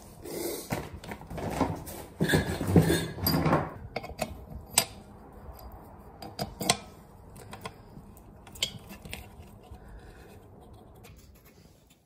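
Metal clinks, knocks and scrapes as the cast-iron housing of a condensate pump is handled and fitted onto its motor. Busiest in the first four seconds, then scattered single clicks.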